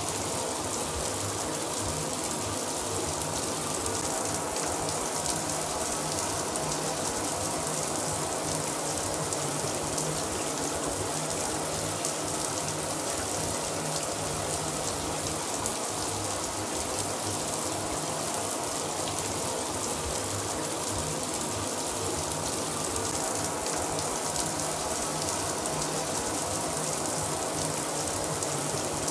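Shower running steadily, water spraying and splashing down without a break.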